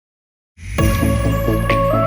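Background music starting suddenly about half a second in after silence: sustained synth tones over a steady pulsing bass rhythm, with a brief bright swish near the end.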